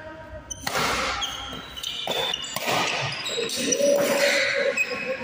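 Players' voices calling out in an echoing badminton hall, with a few scattered knocks and scuffs on the court.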